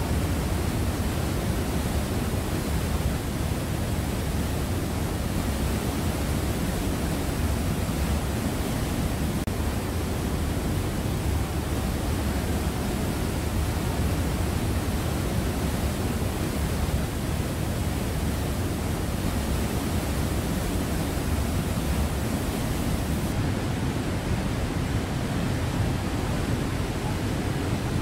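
Glacier-fed waterfall pouring through a narrow rock gorge: a loud, steady rush of falling water, heaviest in the low end.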